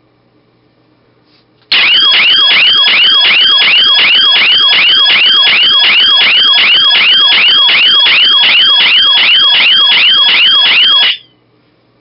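Electronic alarm siren of a homemade laser tripwire security system, set off by breaking the laser beam. It starts suddenly a couple of seconds in, very loud, with rapid falling sweeps at about three a second. It cuts off abruptly about a second before the end as the alarm is deactivated with the keypad combination.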